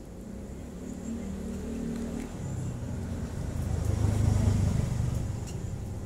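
A motor vehicle engine passing by: a low rumble that grows louder to a peak about four seconds in, then starts to fade.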